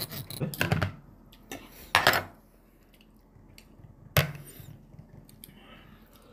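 Stainless knife and fork cutting steak on a plastic plate: clacks and scrapes of the cutlery against the plate. The sounds are loudest in the first second and at about two seconds, with a single sharp tap a little after four seconds.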